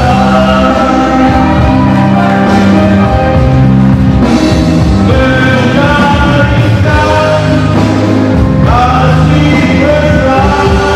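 A man singing into a handheld microphone, amplified over musical accompaniment, holding long notes.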